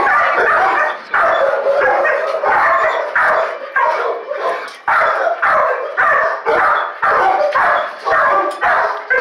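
Dog barking over and over in a steady run of loud barks, a little more than one a second, without pause.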